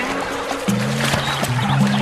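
Background music score with low held notes that come in under a second in.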